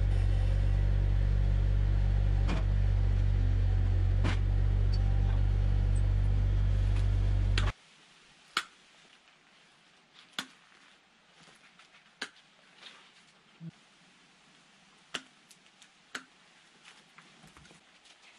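Bobcat 751 skid-steer loader's diesel engine running steadily, then cutting off abruptly about eight seconds in. After that come sharp metallic clicks and knocks, one every second or two, as the clamps on the sawmill bed are set against the log.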